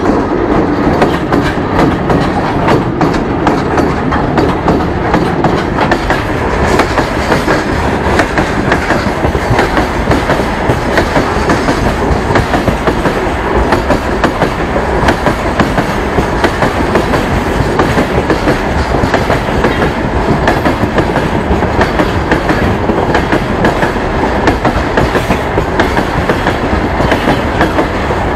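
A train passing close by: a loud, steady rumble of rolling wagons with the clickety-clack of wheels over the rail joints.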